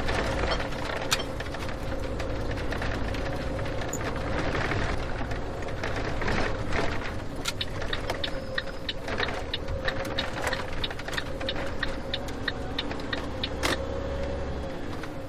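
A car driving along at a steady pace: its engine runs evenly over a low rumble of road noise, with frequent short rattles and clicks, busiest in the second half.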